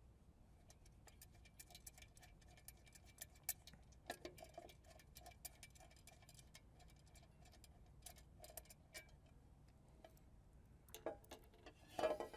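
Faint, regular clicking of a ratchet wrench loosening the bolts on a solenoid cover, with scattered small metal clicks and a few louder clicks near the end.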